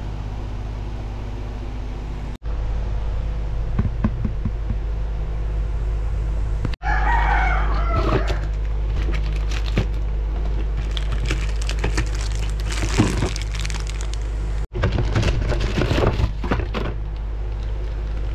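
A rooster crowing once, about seven seconds in, over a steady low rumble that breaks off abruptly several times.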